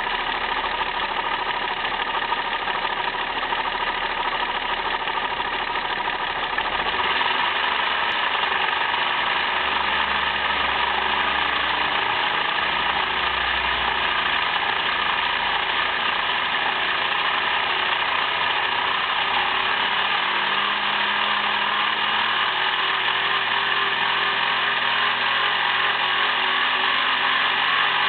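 Volkswagen VR6 narrow-angle V6 engine running steadily, likely at idle, with a strange noise in it that its owner is asking about.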